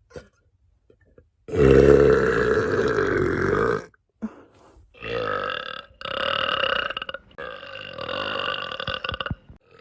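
A woman burping loudly: one long burp lasting about two and a half seconds, then three more burps close together.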